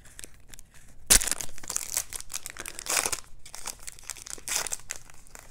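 Wrapper of a Court Kings basketball trading-card pack being torn open and crinkled: a run of crackles with a sharp, loud tear about a second in.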